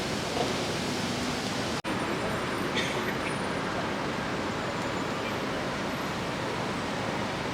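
Steady outdoor city background noise, an even hiss of traffic. It drops out for an instant about two seconds in, where the recording cuts to another scene.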